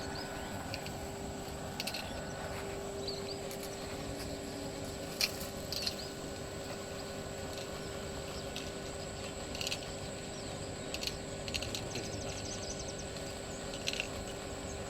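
Outdoor ambience: a steady hiss with a faint steady hum, and scattered short chirps and clicks now and then.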